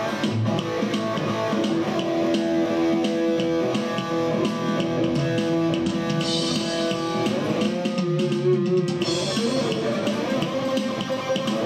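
Guitar-led music with held notes over a steady beat.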